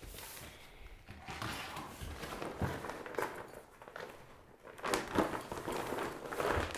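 Nylon roll-top dry bag rustling and rubbing as it is opened and handled, with a few soft thumps as gear is moved around on a wooden floor.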